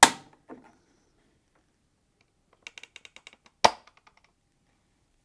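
Plastic retaining clips of a Samsung ecobubble washing machine control panel snapping loose as a flathead screwdriver prises the PCB free. Two sharp snaps, one at the start and one about three and a half seconds in, with a fainter click just after the first and a quick run of small clicks just before the second.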